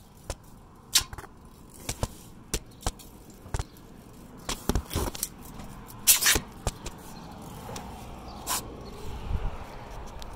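Handling noise from the recording phone: irregular clicks and knocks with short scraping rubs, the loudest rub about six seconds in.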